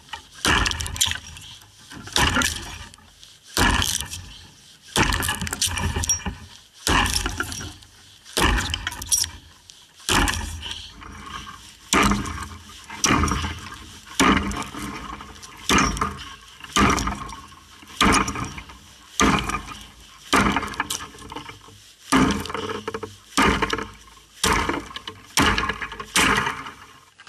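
Axe chopping into a dead tree's log, with steady strikes about one a second as a V-notch is cut through it.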